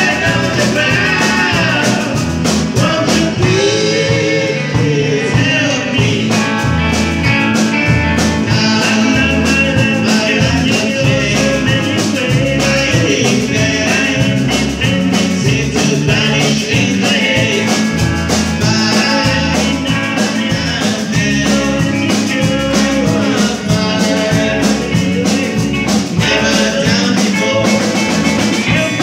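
Live rock band playing a song: electric guitars, bass, drums and keyboards, with a lead vocal.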